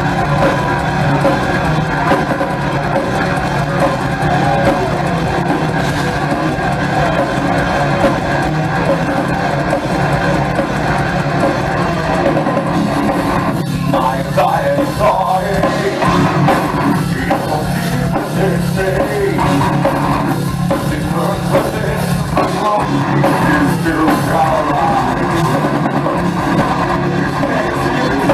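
Heavy metal band playing live at full volume: distorted electric guitars, bass and a pounding drum kit in a dense, unbroken wall of sound.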